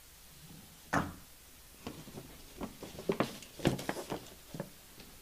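Handling noise: a string of irregular knocks and clicks, with one sharp knock about a second in and a quick cluster of them in the middle, like things being moved about at a lectern near the microphone.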